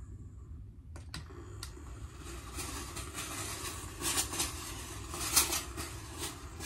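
Handheld garment steamer in use: a click about a second in, then steam hissing onto the shirt with louder spurts near the middle, over a steady low hum.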